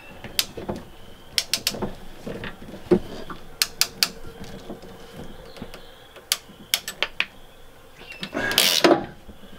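Ratcheting PEX crimp tool clicking as its handles are squeezed down on a half-inch crimp clamp over PEX tubing: sharp clicks, some in quick runs of two or three. A louder burst of noise comes near the end.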